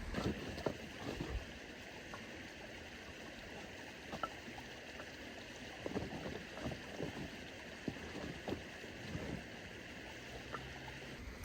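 Steady rush of flowing water with scattered light knocks and clicks. The water noise stops abruptly near the end.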